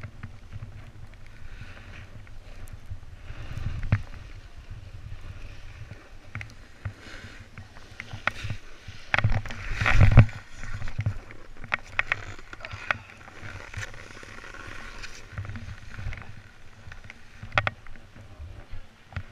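Snowboard sliding and scraping over packed, groomed snow, with wind rumbling on the camera microphone and scattered knocks from the board and bindings. About ten seconds in there is a louder scrape and thump as the rider skids to a stop and sits down in the snow.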